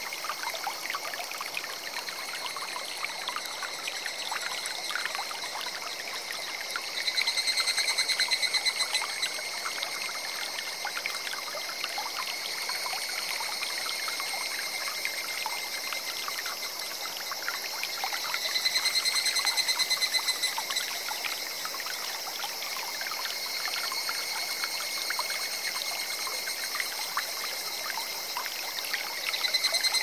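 A small forest stream trickling and burbling steadily. About seven seconds in, again near twenty seconds and at the very end, a high rapid pulsed trill of about two seconds rises over the water, the loudest sound here. A faint steady high ringing runs underneath.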